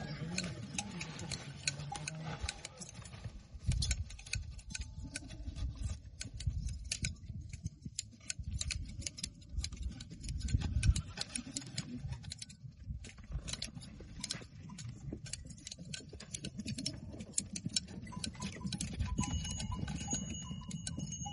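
Goat hair being cut with shears, several goats sheared at once: a fast, irregular run of sharp snipping clicks over a low rumble.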